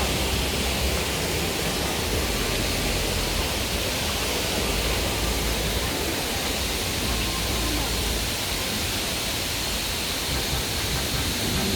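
Large waterfall's falling water rushing in a steady, even wash of noise, heard close to the plunge.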